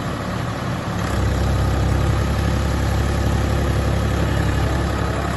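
Sanman 6000 tractor's diesel engine running steadily under load while pulling a cultivator through the soil, growing louder about a second in.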